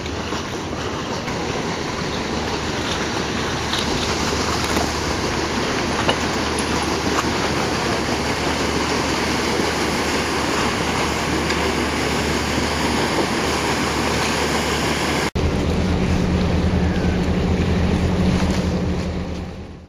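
Paddle steamer passing close by: a steady rush of churning water from its paddle wheels and wake, growing louder as it nears, with wind on the microphone. After a sudden cut about three-quarters through, a steady low engine hum over water noise takes over.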